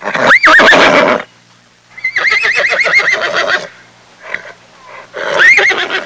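Horse whinnying three times. Each call sweeps up high and then quavers rapidly; the middle call is the longest.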